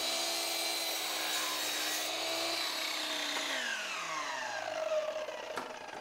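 Sliding miter saw running at full speed as it cuts a cedar board, then switched off, its blade winding down in a falling whine over about three seconds.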